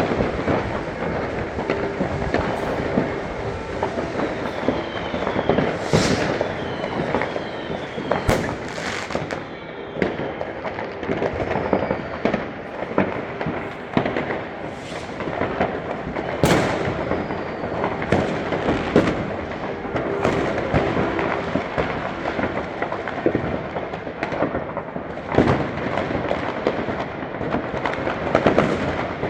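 Many fireworks and firecrackers going off together: a dense, unbroken crackle of bangs, louder single bangs every few seconds, and a few short falling whistles.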